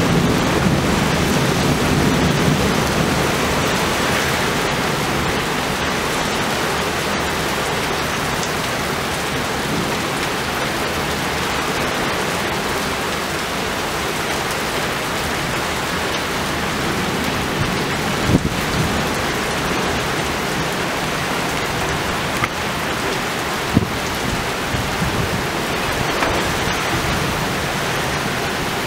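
Heavy thunderstorm rain pouring steadily, with a low thunder rumble fading away at the start. Two or three brief sharp cracks come in the second half.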